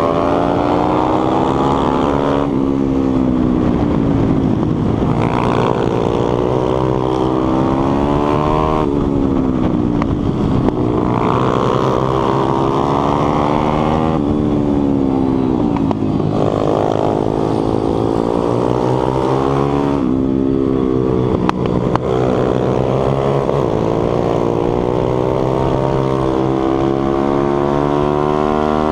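Onboard sound of a 140cc pitbike's single-cylinder four-stroke engine at race pace, the revs climbing and falling again and again as it accelerates, shifts and backs off for corners.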